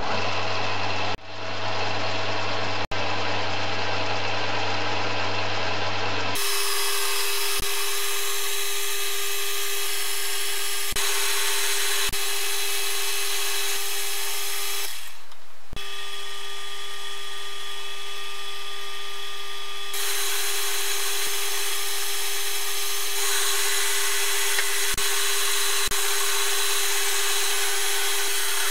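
Metal lathe running and turning a 1045 steel bar: a steady whine over the noise of the tool cutting. The sound changes abruptly about six seconds in and again around fifteen seconds.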